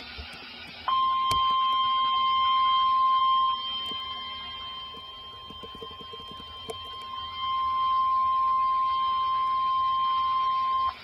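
NOAA Weather Radio warning alarm tone, the 1050 Hz tone sent before a warning message: one steady high tone that starts about a second in and lasts about ten seconds. It sags in level for a few seconds midway, over a background of radio hiss with a few faint clicks.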